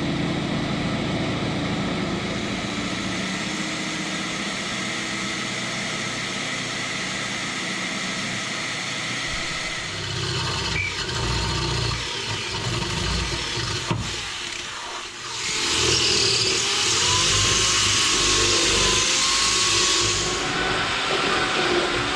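Power drill running, boring holes through the car's underbody metal to mount subframe connectors. The sound shifts about ten seconds in and grows louder and hissier for several seconds near the end.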